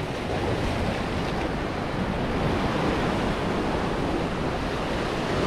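Sea waves washing and breaking against jetty rocks, a steady rushing surf, with wind rumbling on the microphone.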